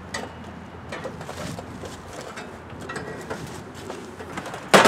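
Lawn tractor's plastic hood being lowered and pushed shut, closing with one sharp clunk near the end.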